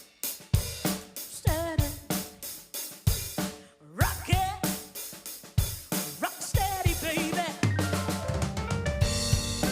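Live funk band in an instrumental passage led by the drum kit: kick, snare and rimshot hits in a broken groove, with a few sliding pitched notes over them. Near the end the rest of the band comes in with held bass notes and a fuller sound.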